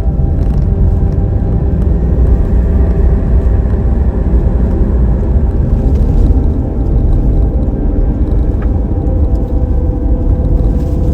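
Motor vehicle driving: a steady, loud low rumble of engine and road noise, with a steady drone of tones above it.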